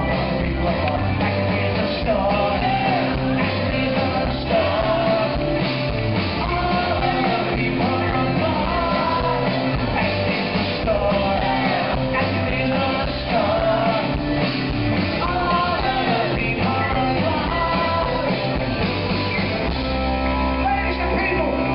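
Live rock band playing with a lead vocalist singing over guitar, bass and drums.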